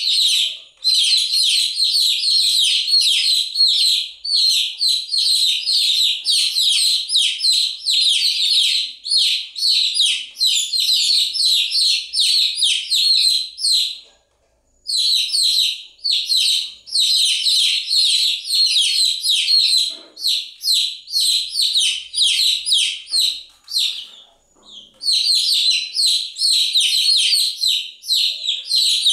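Baby chicks peeping in a dense stream of rapid, high-pitched chirps, with two brief breaks of under a second: one about halfway through and one a few seconds before the end.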